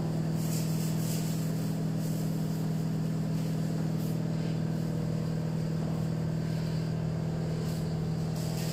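A steady low mechanical hum, with a few faint scrapes of a silicone spatula stirring in a stainless steel bowl.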